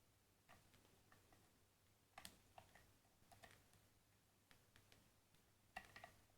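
Faint, scattered clicks of a lock pick working the spool pins of a Vita pin-tumbler lock held in a deep false set, with small clusters of clicks about two, three and a half, and six seconds in.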